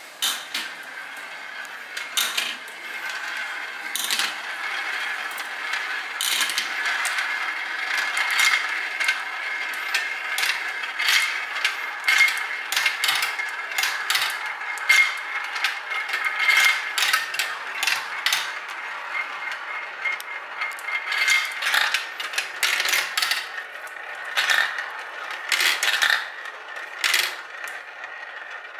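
Motorized chain-driven marble elevators running with a steady mechanical whir, while glass marbles roll along plastic track and circle in plastic funnel bowls, with many sharp clicks and clacks as the marbles hit track pieces and each other.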